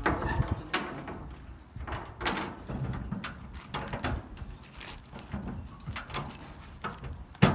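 Irregular metallic clicks, scrapes and knocks as a hand tool works at the steel locking-bar handle of a shipping container door, with one sharp, loud clank near the end.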